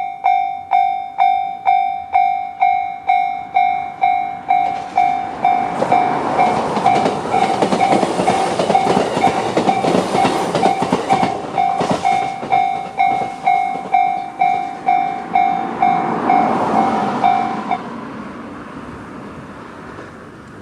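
Japanese level-crossing electronic warning bell (the JR standard tone) ringing about twice a second while a JR East E129-series electric train passes, its wheels clattering over the rail joints. The bell stops near the end as the crossing clears, and the train's noise fades away.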